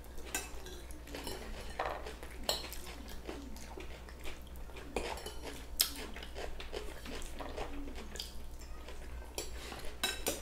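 Metal forks and spoons clinking and scraping against plates as several people eat rice pilaf, with irregular light clicks throughout.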